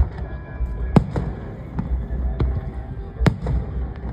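Fireworks bursting: a string of sharp bangs at uneven intervals, loudest about a second in and again just past three seconds, over a steady low rumble.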